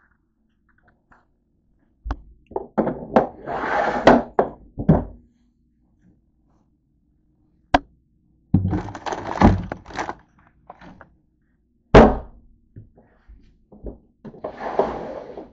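Household objects being handled and moved: several bursts of rummaging and rustling with knocks and thunks, and a single sharp knock about twelve seconds in.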